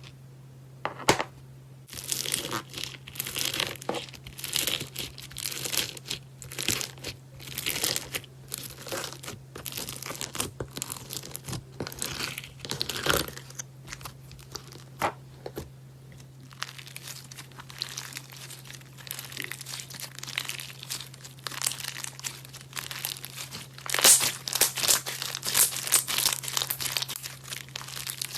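Slime being squeezed, pressed and pulled by hand, giving a dense, irregular run of crackling and crinkling pops, with a louder flurry near the end. A steady low hum runs underneath.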